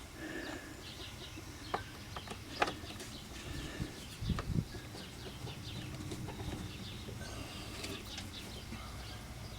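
A few scattered light clicks and knocks of a screwdriver working on the screws of a plastic engine air box cover, with birds chirping faintly in the background.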